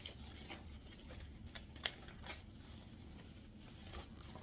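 Faint rustling and a few light clicks of clothes packaging being handled, a little under two seconds in and again just after two seconds.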